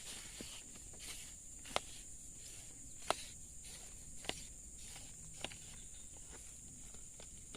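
Steady high-pitched insect chirring, with four sharp clicks spaced about a second apart in the middle.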